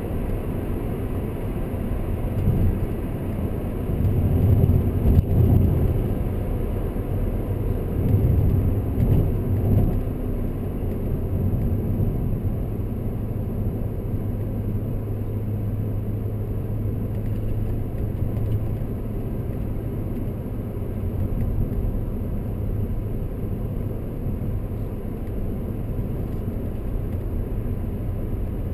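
Inside the cabin of a 2003 BMW M5 (E39) under way: its 4.9-litre V8 and the road noise make a continuous low drone. The engine swells louder twice in the first ten seconds, then settles into a steadier hum.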